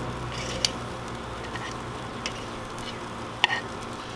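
Food sizzling steadily on a hot charcoal grill grate, with three sharp light clicks spread through.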